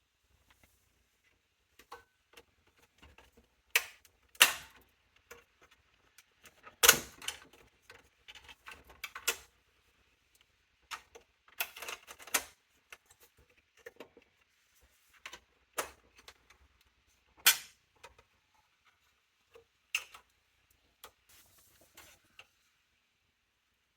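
Scattered clicks, taps and knocks of a Lenovo ThinkCentre M700 small-form-factor desktop's case and parts being handled during disassembly, at irregular intervals, the loudest a few seconds in and again past the middle.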